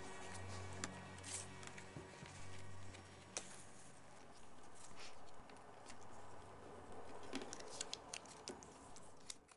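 Faint ambience with scattered light clicks and rustling; a low hum fades out over the first few seconds.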